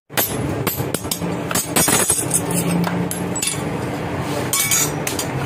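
Irregular hammer blows and clinks of metal on metal, each with a short ringing tail, from a blacksmith hand-forging a sickle blade.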